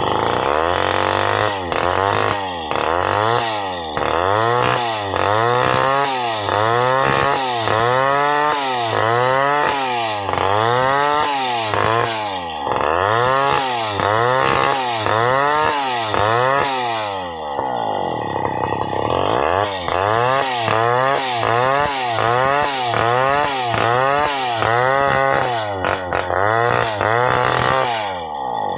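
Two-stroke chainsaw with a long extension bar ripping lengthwise through a large log, its engine pitch rising and falling over and over about one and a half times a second, with a briefly steadier stretch a little past the middle.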